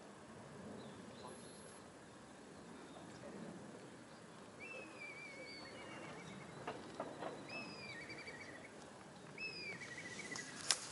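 A bird calls three times at even spacing over faint outdoor background noise; each call is a short falling whistle that runs into a trill. A few sharp clicks come near the end.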